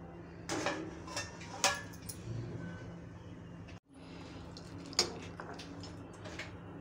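A metal slotted spoon knocks and scrapes against a pan as it stirs pasta in boiling water, giving a few separate clinks over a low steady background. The sound briefly cuts out just before the middle.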